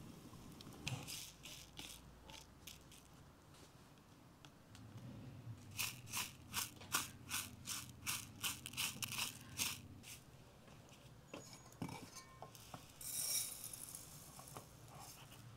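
A few faint crackles from a wood fire, then dry long-grain rice picked over by hand on a plastic plate: a quick run of light clicks and rustles as fingers push the grains against the plate. Near the end the rice is tipped off the plate into a bowl with a short hiss of sliding grains.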